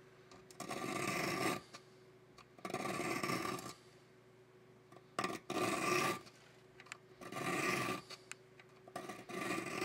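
A fine triangular file rasping across the teeth of a fine-tooth handsaw, sharpening the front of each tooth. It goes in five even push strokes of about a second each, roughly two seconds apart, with a faint click here and there between them.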